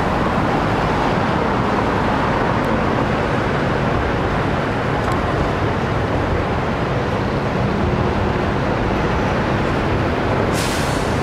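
Intersection traffic: cars, a city bus and a low-floor tram passing, a steady mix of engine hum and tyre noise, with a short hiss near the end.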